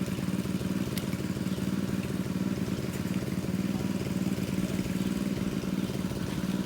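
Engine of a pond-draining water pump running steadily at a constant speed, with a strong low hum.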